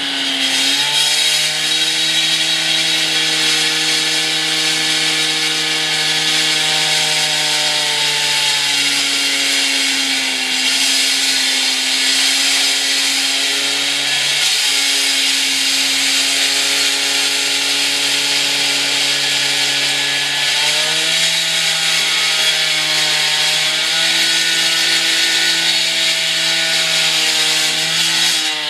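Power saw running and cutting continuously, a steady motor tone over a loud high hiss, its pitch dropping a little about eight seconds in and rising again twice later as it is worked.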